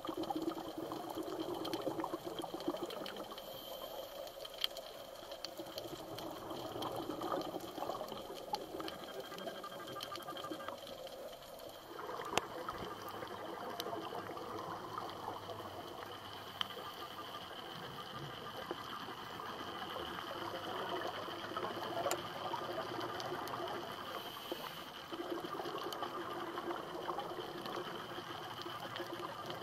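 Underwater water noise: a steady hiss and wash, with many faint scattered clicks and crackles.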